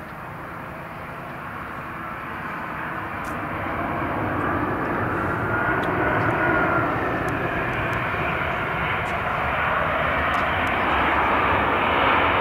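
Airbus A320-214's CFM56-5B jet engines during the landing rollout after touchdown. A broad jet roar grows louder over the first several seconds and then holds steady, with a faint whine that rises and falls in pitch near the middle.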